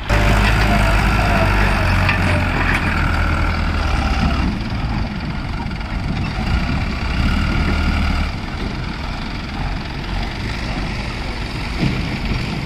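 Diesel farm tractor engines working hard to haul a loaded trailer through soft sand, a deep steady drone. It eases about four seconds in and swells again for a couple of seconds after the middle.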